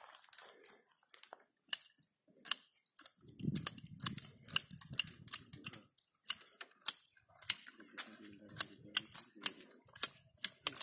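Small twigs being pruned by hand from a young custard apple tree: a run of sharp, irregular clicks and snaps, about one or two a second, with low rustling between.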